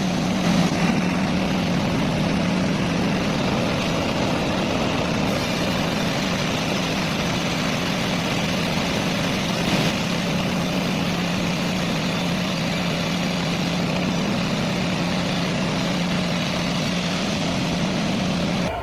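A heavy engine-driven machine running steadily with a constant low hum, with no change in load.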